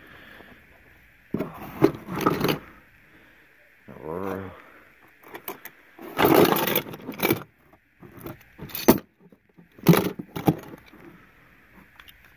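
Die-cast metal toy cars clinking and clattering against each other in a cardboard box as a hand rummages through them, in several irregular bursts.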